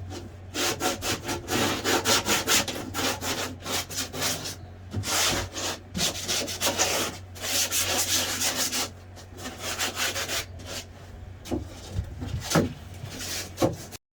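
Wooden boat interior being sanded by hand with sandpaper: short, uneven back-and-forth rasping strokes.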